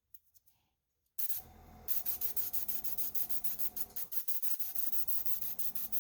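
Rapid back-and-forth abrasive rubbing, like hand sanding or scrubbing a small diecast part, at about eight or nine strokes a second. It starts just over a second in and falters briefly around four and a half seconds.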